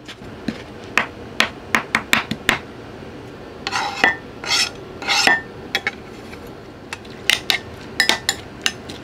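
Chef's knife chopping culantro leaves on a cutting board: a quick run of sharp taps. Around the middle, a second or so of scraping as the chopped greens are scraped off the blade into a glass bowl, then more sharp clicks near the end.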